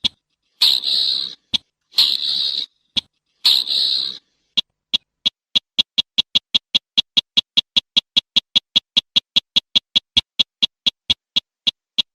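Slaty-breasted rail calling: three harsh, rasping notes, then a long series of sharp ticking notes at about five or six a second, slowing near the end.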